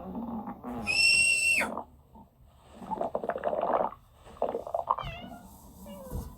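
Stomach growling in irregular bouts of rumbling, with a high, steady squeal lasting about half a second about a second in and a falling, pitched growl near the end.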